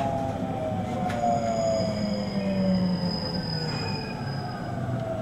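521 series electric train heard from inside its motor car, braking into a station: the traction motors and inverter whine in several tones that fall slowly and steadily in pitch over the rumble of the running gear. A thin high whistle sounds over the middle.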